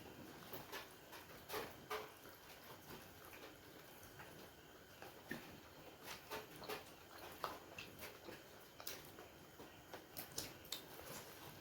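People chewing and eating steamed momo dumplings: faint, irregular wet mouth clicks and smacks.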